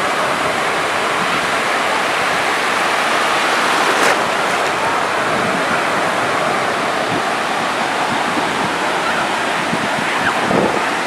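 Small waves breaking and washing up at the shoreline, a steady rushing surf.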